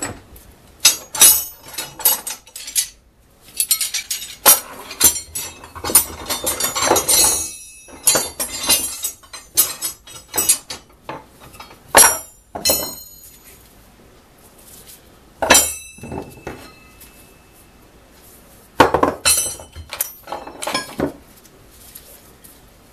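Long steel carbide-tipped rotary hammer drill bits clinking and clattering against one another and the metal workbench as they are handled and laid out, in several bursts with a few strikes ringing briefly.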